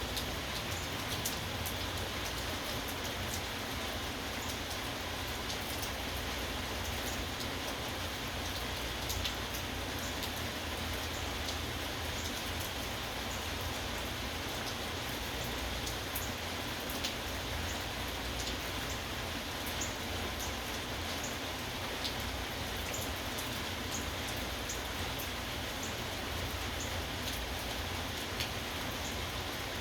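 Steady rain falling, with individual drops ticking sharply on a hard surface.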